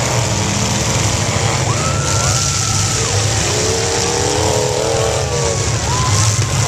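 Several demolition derby cars' engines running hard together in a loud, constant rumble, with engine notes rising and falling as drivers rev.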